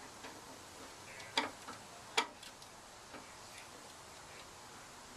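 Scattered sharp metallic clicks and taps of hand tools working on engine sheet metal, with two louder clacks about one and a half and two seconds in.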